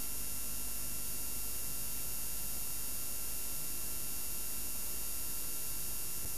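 Steady hiss with a low hum and a few faint thin whine tones: the noise of an analogue videotape soundtrack with no programme on it.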